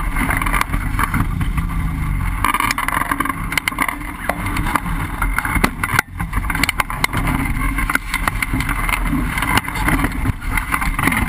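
Wind rushing and buffeting over the microphone of a camera mounted on a hang glider as it falls under its deployed reserve parachute, with many short gusts and knocks and a brief dip about six seconds in.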